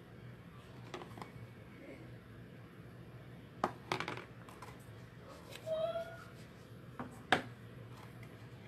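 A few light clicks and taps from makeup tools being handled during sponge application, the loudest a sharp tap near the end, over a faint steady low hum.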